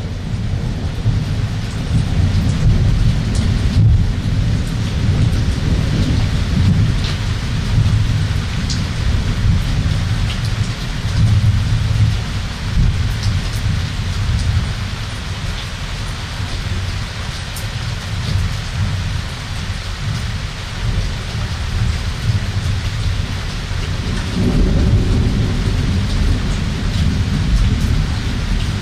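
Thunderstorm: steady heavy rain with scattered drops ticking close by, under a continuous low rumble of thunder that swells and fades, rolling up strongly again near the end.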